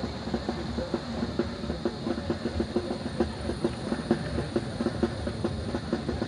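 A vehicle on the move: steady low engine hum with a rapid, irregular rattling clatter.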